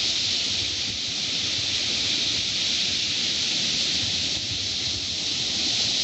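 Small waves washing up over a sandy shore at the water's edge: a steady hiss of surf.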